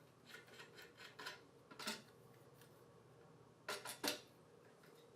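A camera slider track being seated in a Delrin plastic clamp: a series of faint clicks and taps in the first two seconds, then two sharper clicks close together near the four-second mark.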